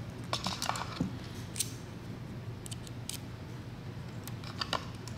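Small sharp clicks and taps of hand tools and small parts while an Amazon Echo Spot is being taken apart. The clicks are irregular, bunched in the first second and again near the end, over a steady low hum.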